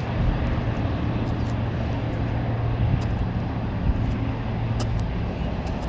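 Road traffic running past: a steady vehicle hum and road noise, the low hum fading about five seconds in, with a few light clicks.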